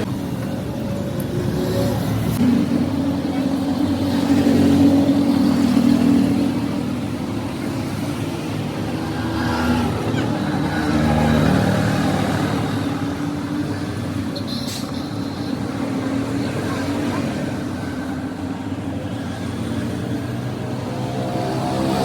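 A motor vehicle engine running, its pitch and level rising and falling, with swells about four and eleven seconds in.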